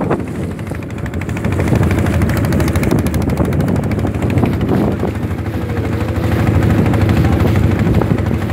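Engine of a small open boat running steadily while under way, a fast, even beat.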